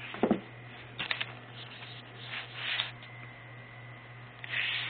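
Handling noises: a couple of short knocks near the start and about a second in, then scraping, rustling sounds, as a tablet box is picked up and moved about. A steady low electrical hum and a faint high whine run underneath.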